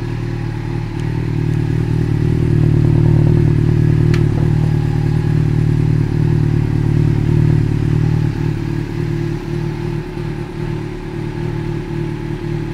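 Yamaha Fazer 600's inline-four engine running steadily at idle through an aftermarket loud exhaust can (a "marmita de roncar"), growing somewhat louder over the first couple of seconds and then holding even.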